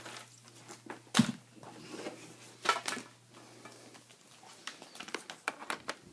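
Light clicks and knocks of a laptop and its parts being handled on a bench, the loudest about a second in and a run of small clicks near the end. A faint low hum stops about four seconds in.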